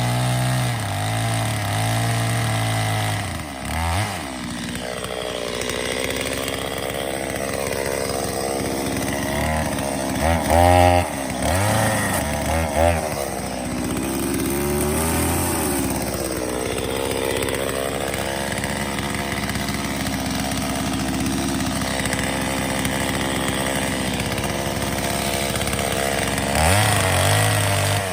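Chainsaw running while cutting into a log round. The engine pitch rises and sags as it works under load, with short bursts of full throttle about a third of the way in and again near the end.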